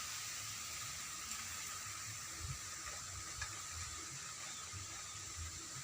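Steady rushing hiss of a large river's flowing water, with a faint steady high tone over it and a few soft low thumps.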